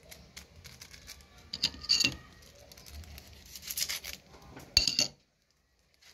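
Small plastic sachet of colorau crinkling as it is handled, then cut and torn open with a kitchen knife: a few short bursts of crinkling and scraping, the loudest about five seconds in.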